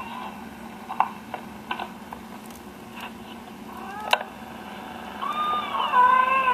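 A cat's chirps and meow playing through a laptop's speakers, from a video of a mother Bengal cat talking to her kitten. There is a short rising chirp about four seconds in, then a longer meow near the end that is the loudest sound, with a few faint taps earlier.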